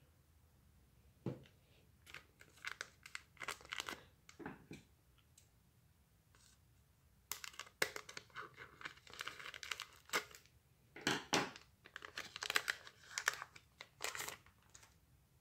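A Pokémon trading card pack wrapper being torn open and crinkled, in two stretches of crackling tears and rustles, the second longer and louder.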